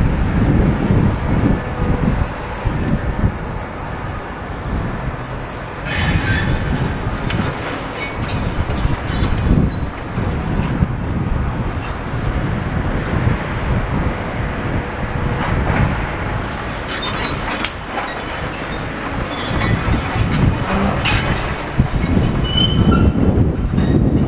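Tracked demolition excavator working, with a steady low rumble and bursts of high metallic squeals and clanks about six seconds in and again later on. There is wind on the microphone.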